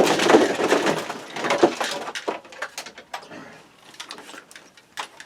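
Hard objects being handled: a dense clatter of scraping and clicking for about the first two seconds, then fainter scattered clicks and knocks.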